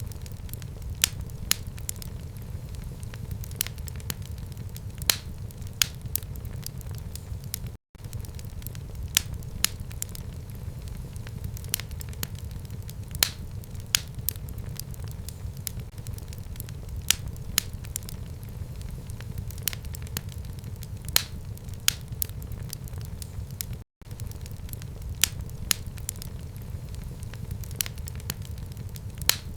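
Fire in a fireplace crackling and popping, with sharp irregular cracks over a steady low rumble of the flames. The sound cuts out for an instant twice.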